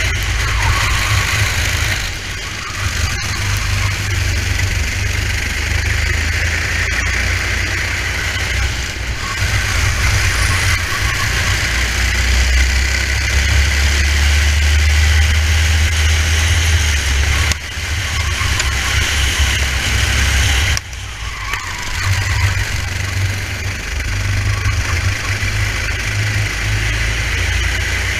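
Racing kart engine running hard on track, heard from a helmet camera with heavy wind buffeting on the microphone. The engine note drops briefly a few times as the throttle is lifted for corners.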